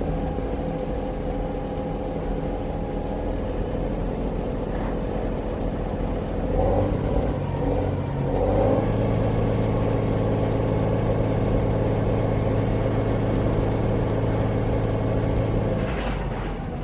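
Truck engine running steadily. Between about six and nine seconds in the engine note shifts and rises, then holds a higher, louder steady note. A brief noise comes near the end.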